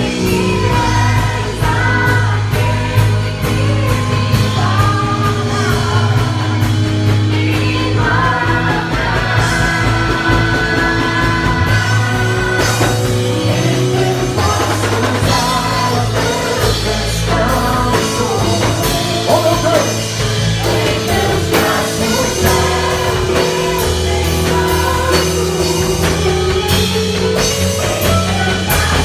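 Worship song played on drum kit and keyboard, with voices singing over held low bass notes and steady drum hits.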